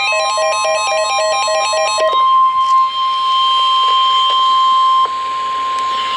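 NOAA Weather Radio warning alarm tone, a single steady tone near 1 kHz that announces an emergency warning and cuts off abruptly just before the end. For the first two seconds a rapid repeating pattern of electronic beeps sounds over it, then stops.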